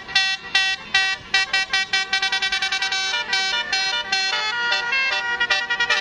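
Bus telolet horn playing a tune of short, sharp notes. The notes speed into a fast trill about two seconds in, then slow again.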